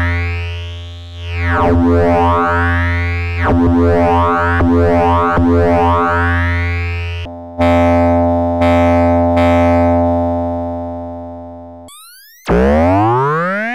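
Eurorack modular synthesizer notes from an Instruō wavefolding oscillator, shaped by an envelope: for about seven seconds, repeated notes roughly every second and a half whose tone sweeps bright and back again. Then a steadier tone is retriggered a few times and fades out slowly. After a short break near the end, a note slides upward in pitch as it fades.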